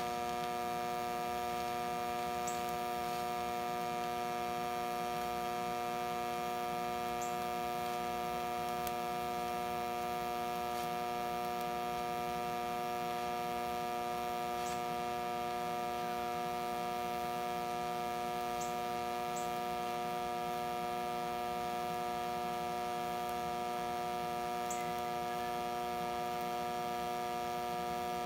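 Steady electrical hum of a Hobart TIG welder while the welding arc burns continuously, with a few faint ticks scattered through it.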